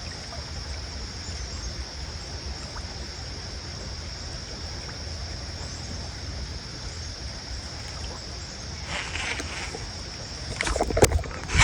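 Steady outdoor background noise with a low rumble and a constant high-pitched buzz. Near the end come some rustling and a few loud, sharp clicks.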